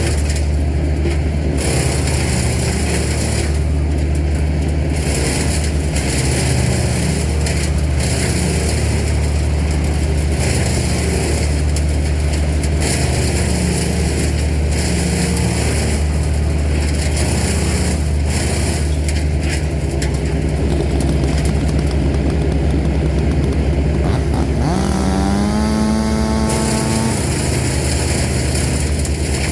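Large tree-service machine engine running steadily under load. About 25 seconds in, a second, higher-pitched engine revs up, holds for a couple of seconds, then drops away.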